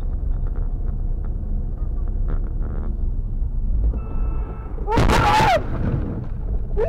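Dashcam car's engine and road rumble, then a short horn-like tone about four seconds in. About a second later comes a loud sudden crash-like burst with a voice crying out over it, as the car collides or swerves.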